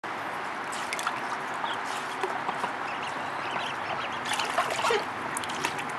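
Water trickling and lapping in a shallow plastic paddling pool as a duck and her ducklings swim about, with many small splashes and drips.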